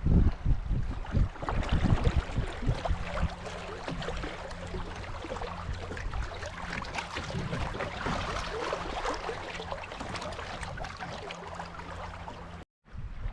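Water splashing and lapping around a kayak being paddled on a river, with wind buffeting the microphone at the start.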